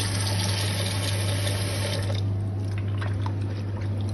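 Tap water running into a bowl of raw fish pieces in a stainless steel sink; about halfway through the flow stops and hands rub and squish the wet fish pieces, with small splashes and clicks. A steady low hum runs underneath.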